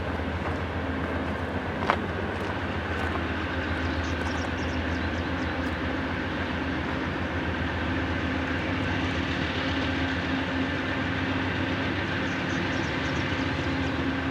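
Diesel freight locomotives running with a steady low engine drone, and one sharp click about two seconds in.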